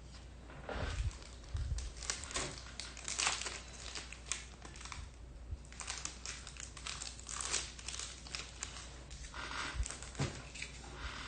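Plastic wrapping crinkling and rustling in irregular handfuls.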